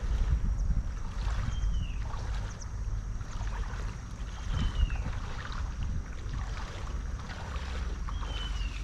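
Wind rumbling on the microphone over the flowing water of a shallow stream, with a bird giving a short falling whistle three times.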